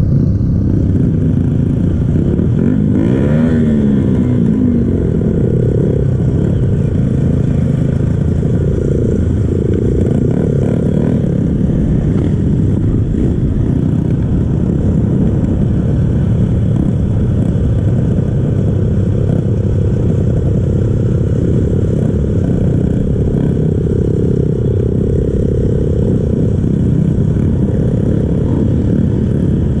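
Kawasaki KLX dirt bike's single-cylinder four-stroke engine, on its stock exhaust, running steadily under way, with a quick rise and fall in revs about three seconds in.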